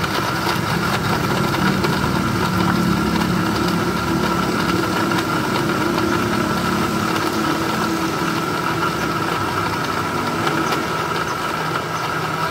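Electric countertop blender running steadily at full speed, its motor whirring with a constant high whine over a lower hum as it churns a thick milk drink made with sweetened condensed milk.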